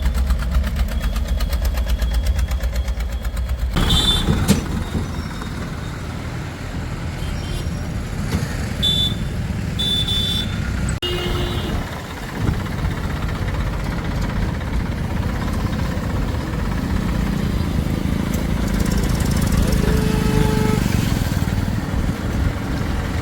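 Diesel engines of heavy machinery, a backhoe loader and farm tractors, running steadily; the sound changes abruptly about four and about eleven seconds in.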